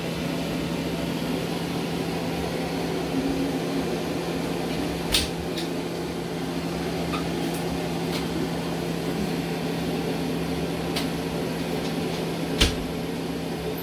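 Steady mechanical hum of a running kitchen appliance, with a few light clicks and knocks, the loudest one near the end.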